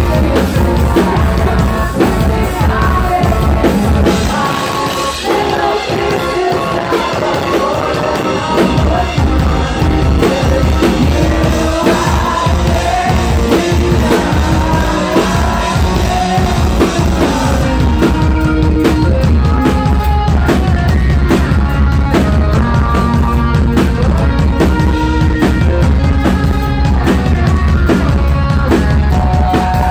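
Live rock band playing loudly, with a male singer over electric guitars, bass and drums. The bass and low end drop away for a few seconds about four seconds in, then the full band comes back in.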